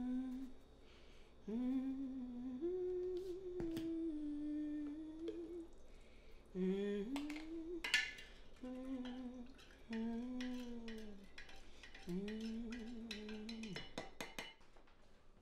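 A woman humming a slow tune in long, gently wavering notes, with a few clinks of a spoon stirring in a glass pitcher of lemonade, the sharpest about eight seconds in and several more near the end.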